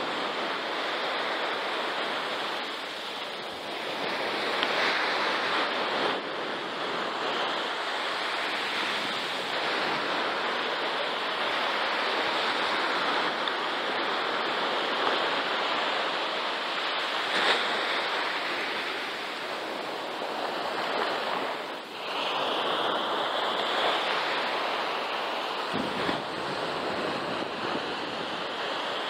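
Surf breaking on a beach, a steady rushing wash that swells and eases every few seconds. A faint high whine joins in over the last several seconds.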